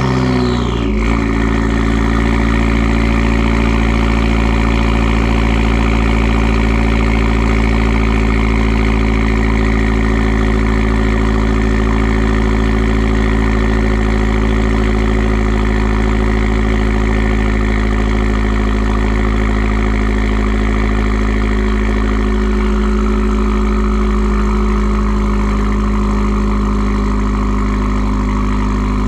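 Dodge Dart rally car's 1.4 MultiAir turbo four-cylinder engine just after starting: a brief rev flare falls away in the first second, and the engine settles into a steady idle.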